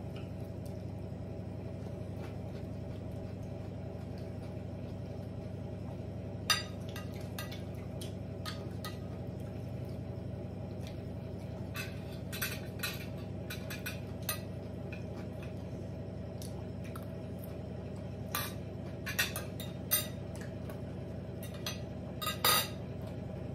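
Spoons and forks clinking and scraping on ceramic dinner plates at a meal, in scattered short clicks with a louder clink near the end. A steady low hum runs underneath.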